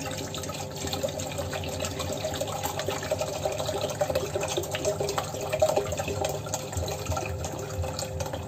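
Vinegar pouring in two streams from upside-down plastic bottles into a stainless steel pot: a steady splashing trickle as the liquid fills the pot.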